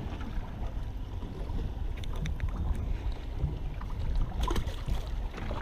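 Steady low rumble of wind and water around a small fishing boat, with a few faint clicks about two seconds in and again near the end.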